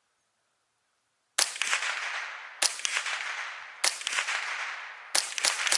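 Remington 597 semi-automatic .22 LR rifle firing Remington Golden Bullet rounds: four shots about a second and a quarter apart, starting about a second and a half in, then a quicker string of shots near the end. Each crack trails off in an echo.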